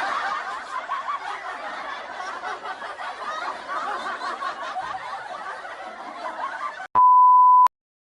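Many people laughing together, a crowd laugh that slowly fades out. About seven seconds in it gives way to a single steady high beep, under a second long, that cuts off abruptly.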